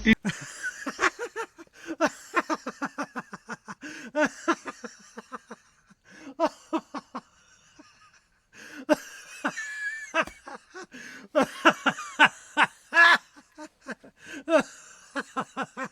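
A person laughing in a rapid run of short bursts, about three to four a second; the laughter dies down about six seconds in and starts again a couple of seconds later.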